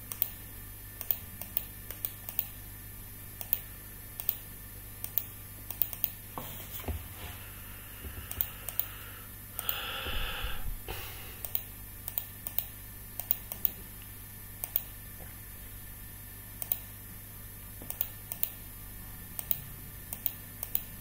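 Irregular clicking of a computer mouse and keyboard, roughly one click a second, over a low steady hum, with a brief hiss about ten seconds in.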